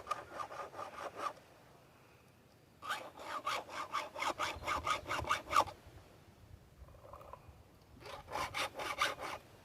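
Round file being pushed across a chainsaw chain's cutter teeth in quick scraping strokes, about four or five a second, in three bursts with short pauses between.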